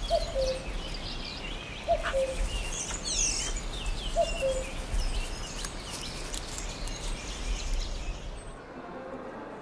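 Many birds chirping, with a lower, falling call repeating about every two seconds, over a low rumble that drops away near the end.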